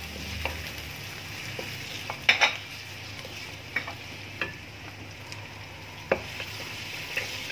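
Sliced onions sizzling in hot oil in a wok as a spatula stirs them, knocking and scraping against the pan now and then, with two sharp knocks about two seconds in and another near the end.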